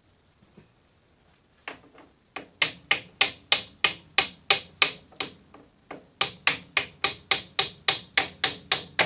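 Hammer tapping a brass drift against the back end of a Sheldon lathe's headstock spindle, about three sharp metallic blows a second in two runs with a short pause about halfway, driving the spindle out through its plain bearings and heat-fitted gear.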